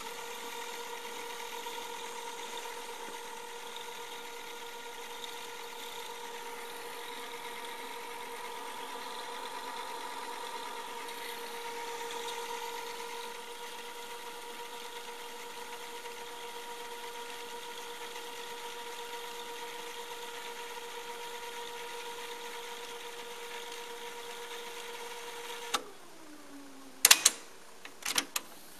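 JVC KD-A11 cassette deck rewinding a tape: a steady motor and reel whine. About 26 s in it clicks and the whine falls in pitch as the transport spins down, followed by a couple of loud clicks from the piano-key transport buttons.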